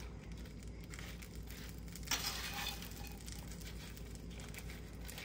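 Plastic serving spoon tapping and scraping as butter-toasted bread cubes are spread over a meat filling, with one louder rustling scrape about two seconds in.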